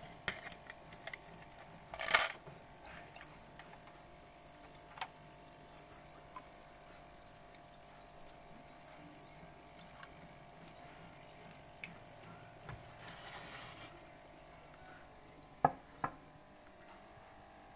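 Water splashing and sloshing as a plastic jar is dipped into an aquarium and filled, with a loud splash about two seconds in and a softer run of sloshing later. Two sharp knocks near the end.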